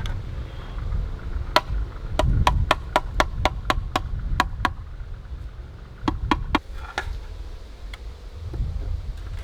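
Bricks being tapped down into their mortar bed with a tool during bricklaying: a quick run of about a dozen sharp taps, roughly four a second, then a few more taps near the end.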